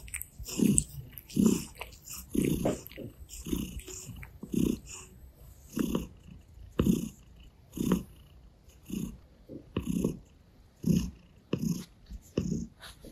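Russian Blue cat purring, the purr swelling and fading about once a second with its breathing, mixed with short soft scratchy sounds of licking and fur rubbing.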